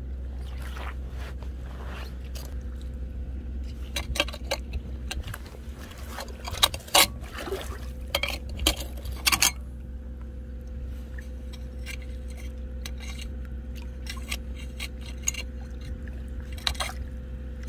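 Someone moving through shallow seawater and among stones and shells while foraging on a tidal flat: scattered small splashes, scrapes and clinks, busiest in the middle, over a steady low hum.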